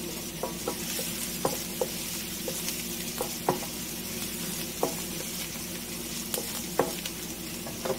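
Chopped onion and garlic sizzling in oil in a nonstick pan, stirred with a wooden spatula that taps and scrapes against the pan at irregular intervals.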